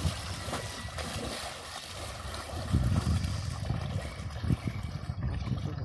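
Shallow river water sloshing and splashing as a person wades bent over, pushing through it with his hands; louder from about three seconds in.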